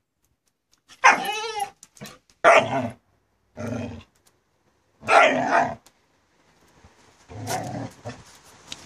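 Small dog barking excitedly five times, the first bark with a wavering, drawn-out pitch. A steady faint hiss comes in near the end.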